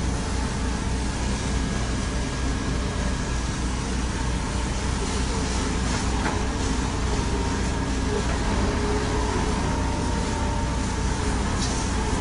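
Fire engine's diesel engine running steadily, a constant low rumble with a faint steady whine above it.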